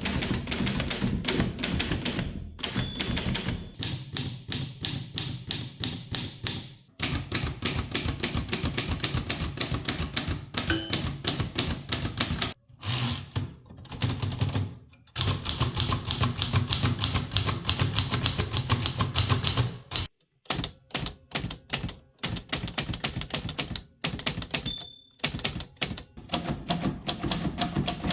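Mechanical typewriters typing fast, the type bars striking in rapid runs of clicks, with a few abrupt switches from one machine to another that sounds different. A margin bell dings briefly twice, near the start and near the end.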